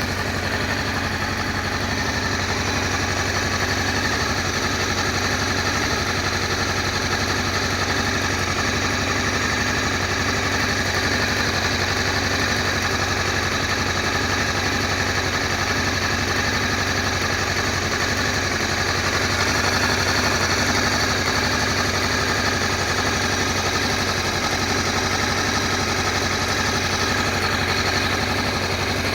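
Honda XRE 300's single-cylinder engine idling steadily, with a fast, even ticking or rattling running through the idle: the strange noise that the owner cannot identify.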